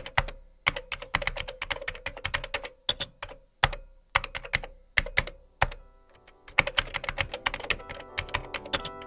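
Typing on a keyboard: rapid clicking keystrokes in irregular runs with short pauses, over a faint steady tone.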